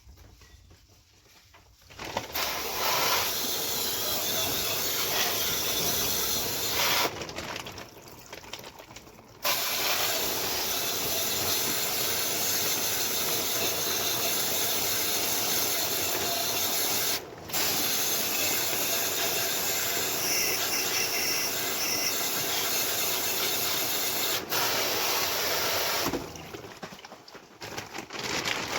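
Cleaning spray jet hissing on an air conditioner's indoor unit in two long bursts, the second with a brief break partway through.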